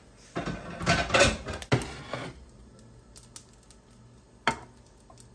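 A ceramic plate being handled on a glass stovetop: about two seconds of rubbing and clatter with a sharp knock partway through, then one more click near the end.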